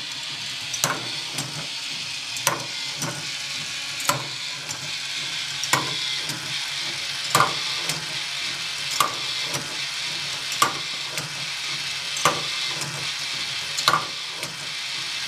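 K'nex helix lift ball machine running: a steady whir and rattle of its motor-driven plastic mechanism and balls rolling on the plastic track, with a sharp clack about every second and a half.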